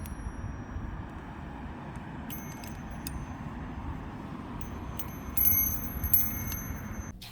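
Handmade wind chime tinkling in the wind over steady wind noise. A few clear high rings come about two seconds in, and a busier cluster of strikes from about five to seven seconds. The sound cuts off just before the end.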